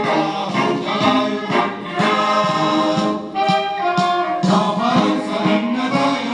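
Music with a group of voices singing together over instrumental accompaniment.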